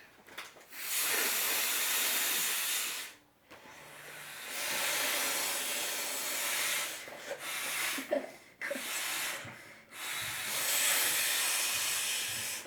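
Air rushing in repeated hissing bursts of one to three seconds each, with short pauses between them, as an inflatable pool toy is blown up.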